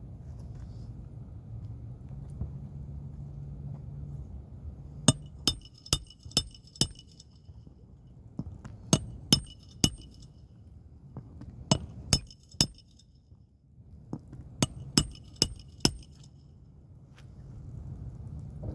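Four quick runs of four or five sharp taps on something hard that rings briefly after each tap, over a low steady hum.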